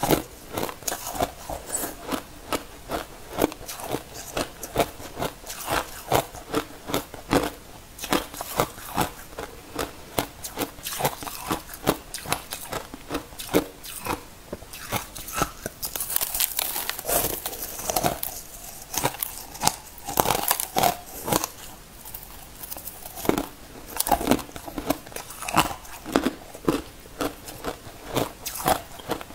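Packed crushed ice ("igloo ice") being bitten and chewed: a steady run of crisp, crackling crunches, about one or two a second.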